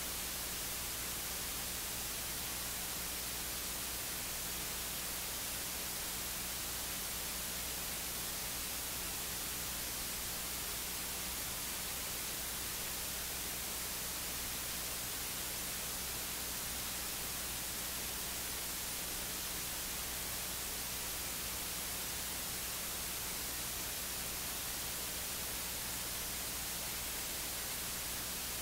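Steady static hiss with a faint low hum beneath it and no voice coming through. This is the sign of a dropped-out sound feed.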